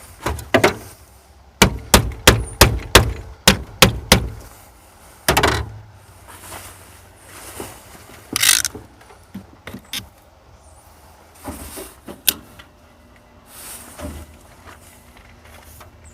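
A quick run of about seven sharp knocks in under three seconds, then a single heavier thud and scattered lighter knocks and a brief scrape: hand work on metal parts.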